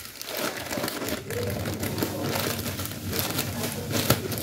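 Close rustling and crinkling handling noises, like plastic packaging being handled, with one sharp click about four seconds in.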